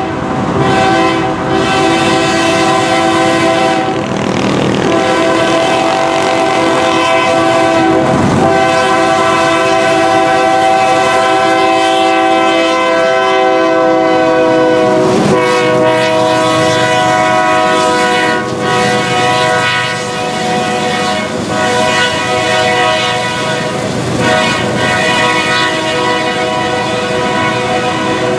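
A KCS freight locomotive's multi-chime air horn sounding a chord in a series of long blasts with brief breaks between them, over the steady rumble and clatter of the train.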